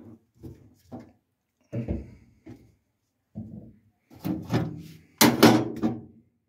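Metal parts being handled and slid on the car's bare steel floor pan: a run of short scrapes and knocks, the longest and loudest near the end.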